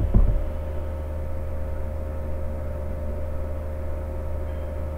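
Steady low electrical hum with a thin steady tone above it, the background noise of the recording, broken by one short low thump just after the start.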